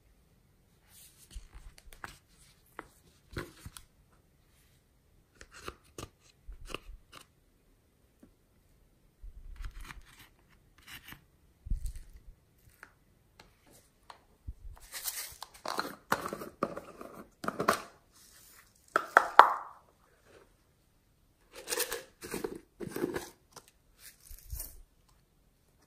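Hands working slime and handling small plastic slime pots: scattered sharp clicks and crackles at first, then a denser, louder run of sticky crackling and squishing from about the middle, and another shorter run near the end.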